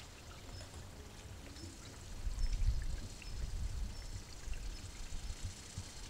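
Wind buffeting the microphone: a low, gusty rumble that swells about two seconds in, over faint outdoor hiss.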